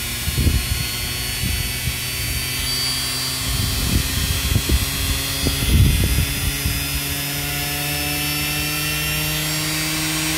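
Salvaged washing machine motor running on a dimmer speed control, its whine climbing slowly in pitch as the speed is turned up. Irregular low rattling comes and goes in the first half.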